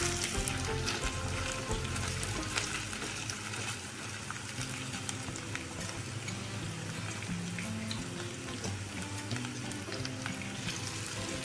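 Vegetable fritter batter frying in hot oil: a steady sizzle with scattered small crackles. Background music with a melody plays under it.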